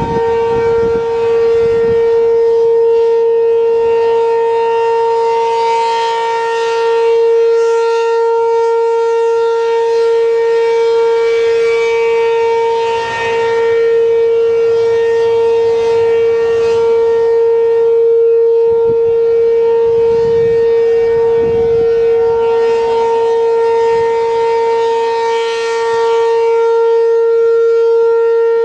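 ACA P-15 outdoor warning siren sounding the steady alert tone: one continuous, unwavering pitch with no rise or fall, its upper overtones swelling and fading every six or seven seconds.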